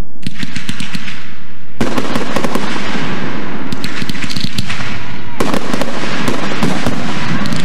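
Aerial firework shells bursting overhead, loud, with dense crackling after each burst. There are three main bursts: right at the start, about two seconds in, and about five and a half seconds in.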